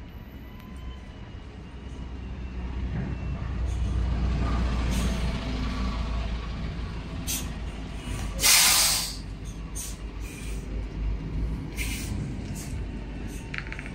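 Dongfeng garbage truck's diesel engine running with a steady low rumble that gets louder a few seconds in. A loud burst of air hiss comes about eight and a half seconds in, with a few shorter hisses near the end, like compressed air released from the truck's air system.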